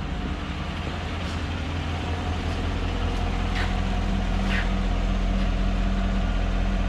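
2015 GMC Yukon's V8 engine idling steadily, growing a little louder about two seconds in, with a few faint light ticks over it.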